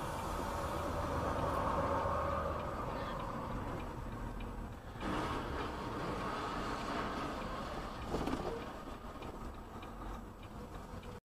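Steady engine and road noise of a vehicle driving on a highway, heard through a dashcam, with a sudden louder patch about five seconds in and a brief dipping tone near eight seconds. It cuts off abruptly just before the end.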